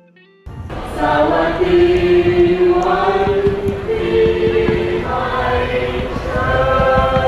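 Music: quiet instrumental notes, then about half a second in a loud choir enters, singing long held notes over a full backing.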